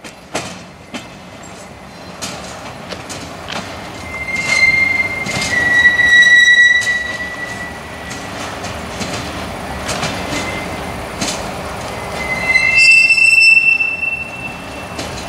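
Freight train of tank wagons rolling past, its wheels squealing high and shrill twice, in the middle and again near the end, over a steady rolling rumble with scattered knocks and clanks from the wagons.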